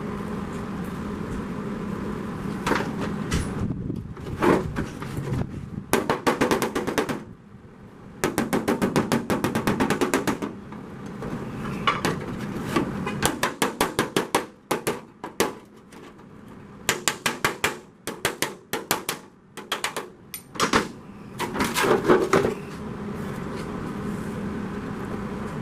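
Electric welder laying tack welds on a Ford Model A side skirt panel: about ten short bursts of rapid clicking, each a second or two long, with pauses between, over a steady low hum.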